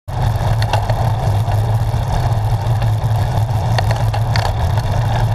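Steady low wind rumble and road noise on the microphone of a camera moving along a road, with a few faint clicks.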